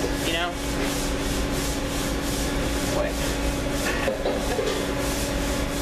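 Scratchy rubbing noise over a steady hum.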